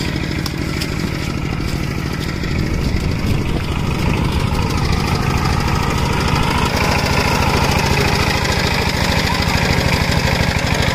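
Two-wheel tractor (power tiller) engine running steadily with a rapid pulsing beat while it ploughs wet mud. It grows a little louder a couple of seconds in and again past the middle.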